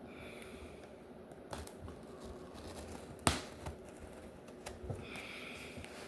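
A cardboard package being handled and opened by hand: scattered small clicks and taps, one sharper click about three seconds in, and short scraping rustles near the start and near the end.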